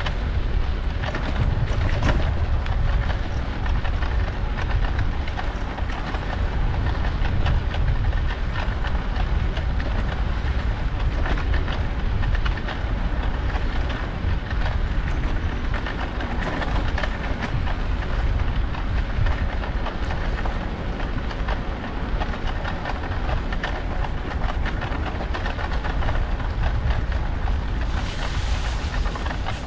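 Wind buffeting the microphone over a bicycle's rolling rumble and a dense, continuous rattle, with a brief hiss near the end.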